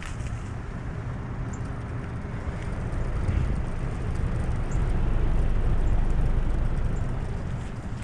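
Lennox 1.5-ton straight-cool mini-split outdoor unit running steadily in cooling mode: the condenser fan's air rush over the compressor hum. It grows louder for a few seconds in the middle, as the microphone comes close to the fan grille.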